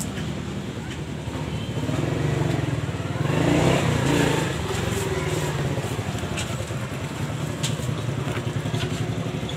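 An engine running steadily with a low, pulsing hum, growing louder for a moment about three to four seconds in.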